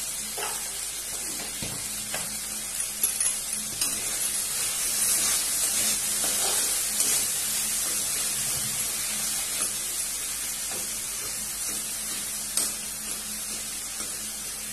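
Tomatoes and green chillies sizzling in hot oil in a metal wok, stirred with a spatula that scrapes and knocks against the pan now and then. The sizzle is steady, a little louder in the middle.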